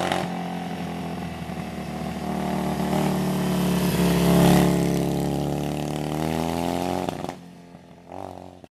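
1979 Yamaha XS650's parallel-twin engine running, its pitch rising gently to a peak about four seconds in and then easing back down. It fades out near the end.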